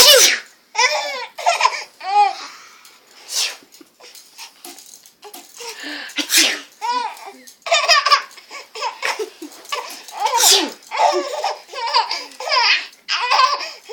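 A baby laughing hard in repeated bursts of giggles, set off by sneezes heard between them a few times.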